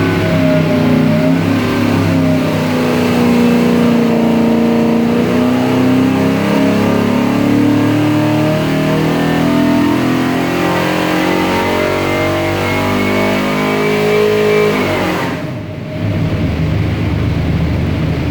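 Carbureted 347 cubic-inch Ford small-block stroker V8 making a pull on an engine dyno: it runs loud under load with its pitch climbing steadily as the revs rise. About fifteen seconds in the throttle closes and the engine drops back to a lower, quieter run.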